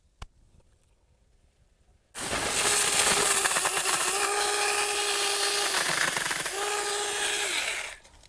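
A sharp click, then a Saker 4-inch 20V cordless mini electric chainsaw starts abruptly about two seconds in and runs for about six seconds while cutting mulberry branches. Its whine dips in pitch twice, then it stops suddenly near the end.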